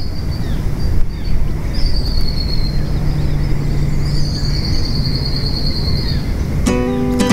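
Outdoor ambience: a steady low rumble of wind with birds calling, including high trills and short chirps. An acoustic guitar strum comes in near the end.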